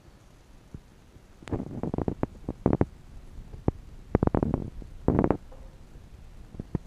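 Handling noise on a handheld camera's microphone: four short clusters of rubbing and rapid knocks, spaced irregularly, with quiet between them.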